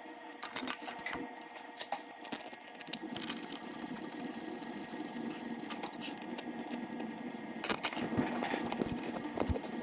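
Steady machine hum with scattered sharp clicks and light knocks, a louder cluster of clicks about three seconds in and again near the end.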